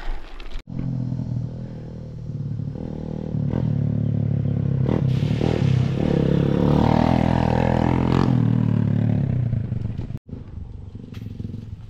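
A motorcycle engine running, getting louder a few seconds in and then fading away near the end, as it goes by.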